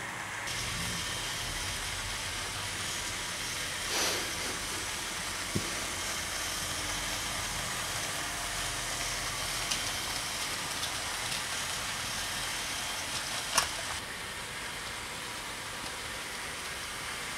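Hornby OO gauge Class N2 model tank locomotives running on the layout with their trains: a steady running hum and rumble of wheels on the rails, with a few short clicks.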